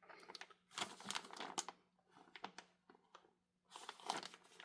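A mil-spec barrier bag with a rifle barrel inside crinkling as it is handled, in two bouts of rustling about a second in and near the end, with faint scattered crackles between.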